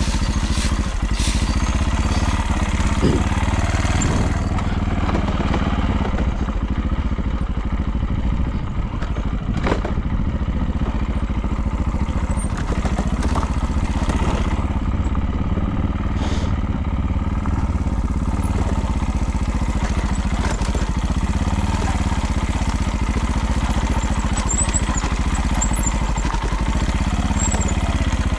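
Motorcycle engine running steadily with a clattering rattle, a noise whose cause the owner could not find. A few sharp clicks stand out, one about ten seconds in and another around sixteen seconds.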